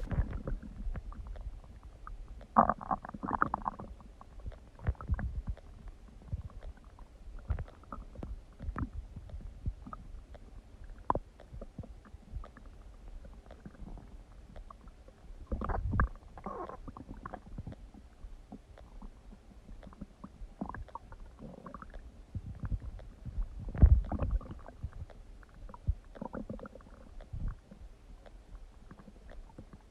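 Human stomach growling and gurgling: irregular low rumbles and squelchy gurgles, with the loudest bouts about three seconds in, around sixteen seconds and again near twenty-four seconds.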